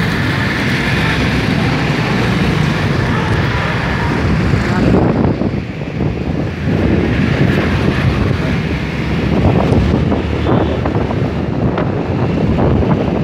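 Wind buffeting the microphone of a phone carried on a moving scooter, with road and engine noise underneath. The high rush thins out about five seconds in, leaving gustier low buffeting.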